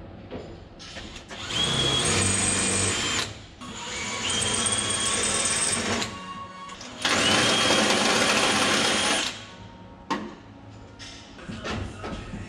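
Power tool run in three bursts of about two seconds each, each time spinning up quickly to a steady high whine.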